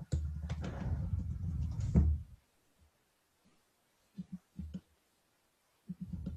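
Low muffled knocks and bumps, as of something handled or knocked against a desk close to the microphone: a dense run for the first two seconds, then a few short soft knocks near the middle and end.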